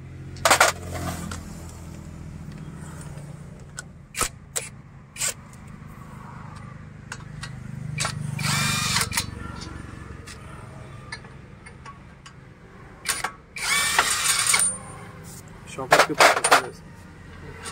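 Impact gun (air gun) undoing the drive-shaft bolt in a Skoda front wheel hub, running in a few short loud bursts over a steady low hum.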